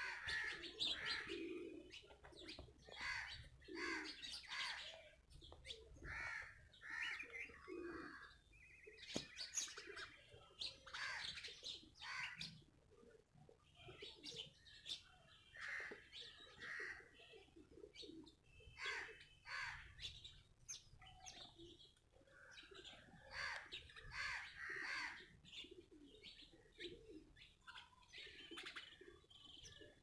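House sparrows chirping over and over, with lower, shorter calls repeating underneath.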